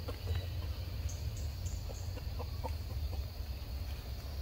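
Scattered short, faint animal calls, cluck-like pips, over a steady low rumble.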